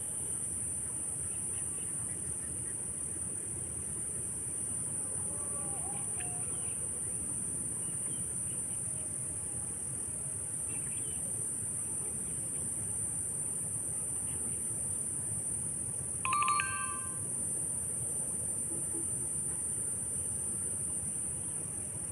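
Steady high-pitched chorus of crickets and other insects over a low, even background noise. A short, louder pitched call stands out about three-quarters of the way through.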